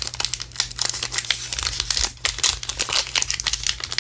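Crinkling wrapper of a 2022 Topps Gypsy Queen baseball card pack being picked at and worked open by fingers at its sealed edge: a rapid, irregular crackle.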